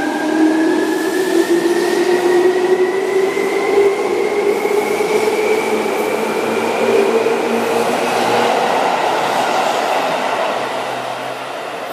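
Seibu 2000 series electric train accelerating away from a station platform. Its field-chopper-controlled traction motors whine, several tones rising steadily in pitch, over the rolling noise of the cars passing close by. The sound begins to fade near the end as the last car goes past.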